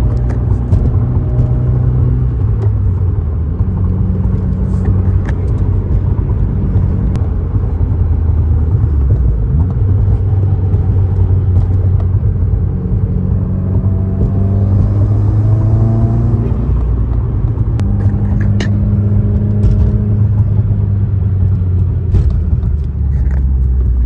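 Subaru WRX's turbocharged flat-four heard from inside the cabin while driving, under a steady low road rumble. The engine pitch climbs and falls several times as the car is taken through the gears of its manual gearbox.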